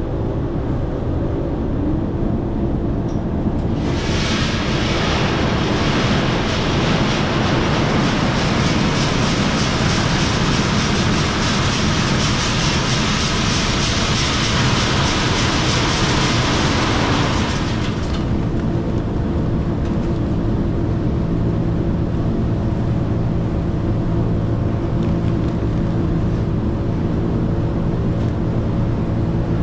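Steady hum of a grass-drying and cobbing plant's machinery, with a loud rushing hiss from about four seconds in until about seventeen seconds in, and again near the end: dried grass cobs pouring from the overhead spout into a big bag.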